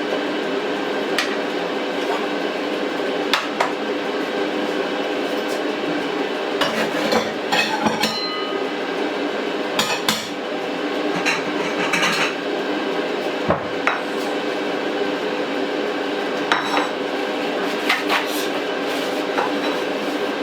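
Kitchen utensils clinking and knocking against pots and dishes, scattered taps and clatters over a steady hum.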